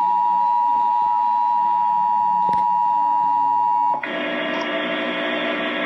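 Emergency Alert System attention signal: a steady two-tone alert tone near 1 kHz that cuts off suddenly about four seconds in. Steady synthesizer-like background music takes over.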